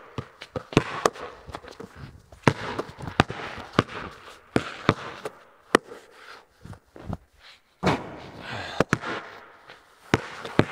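Basketballs bouncing on a concrete floor and striking the hoop: an irregular run of sharp bangs, each echoing briefly in a large, bare, metal-walled room.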